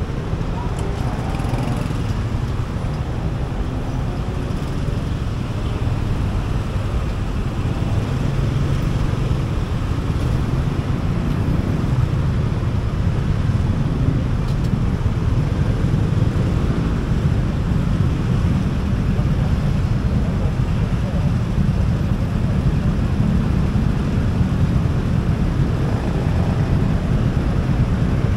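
Dense city traffic heard from a motor scooter: a steady low rumble of motorcycle and car engines. The scooter rides along at first, then waits among idling motorcycles and cars at a junction.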